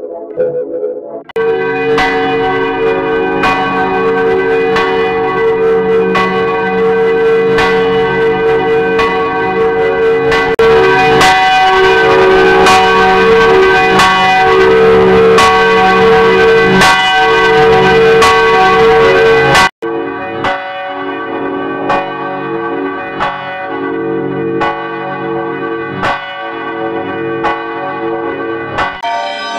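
Church bells ringing, struck over and over with their tones ringing on. Shortly before 20 seconds in, the sound cuts off abruptly and a quieter peal of bells follows.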